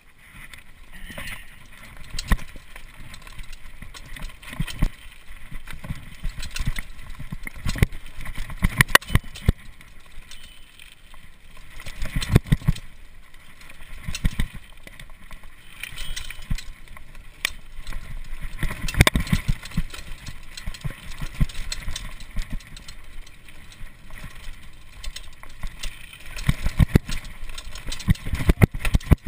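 Mountain bike riding fast down a rough dirt trail: steady tyre and trail noise with frequent sharp rattles and knocks as the bike jolts over bumps, coming in louder clusters every few seconds.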